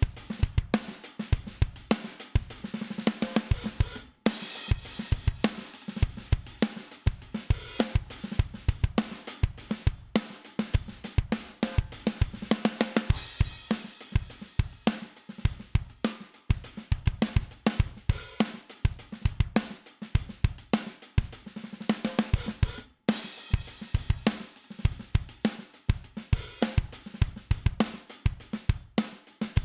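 Drum bus recording of a full drum kit playing a steady groove of kick, snare, hi-hats and cymbals, compressed through a dbx 160-style compressor plugin. It is the Waves dbx 160 at first, switching to the Analog Obsession dBComp about 13 seconds in. The playback cuts out briefly twice, where the loop restarts.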